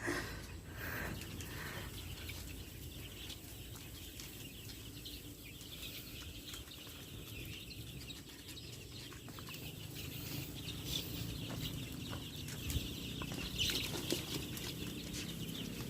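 A flock of young layer chicks peeping faintly, many short high chirps scattered throughout, over a low steady hum.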